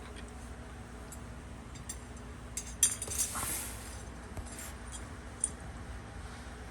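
Metal parts and hand tools clinking against each other, with a cluster of sharp clinks about three seconds in followed by a brief scrape, and one more clink near the end.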